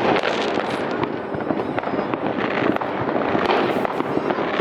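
New Year's Eve fireworks going off: a dense, continuous stream of crackling pops and bangs.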